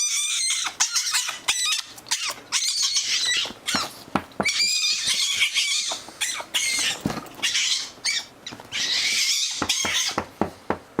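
Fennec fox giving a string of high-pitched, wavering squealing calls, one after another, with short clicks in between.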